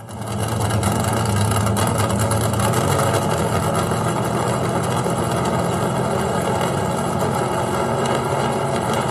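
Racing engines running steadily and loudly, a constant engine drone with no breaks.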